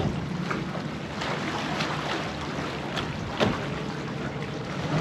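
Sea water sloshing and lapping against a small tour boat's hull and the rock around it, with several short sharp slaps of water.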